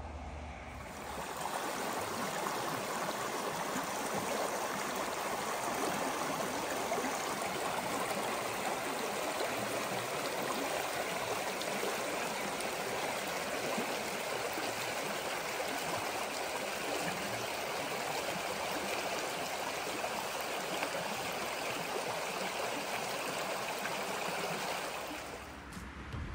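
A shallow mountain stream rushing over stones: a steady, even wash of water noise that comes in about a second in and drops away near the end.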